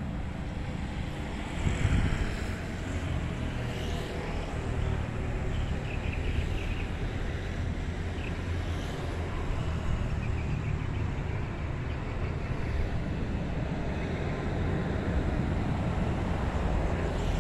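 Wind rumbling on the microphone over distant road traffic, a steady low noise without a break.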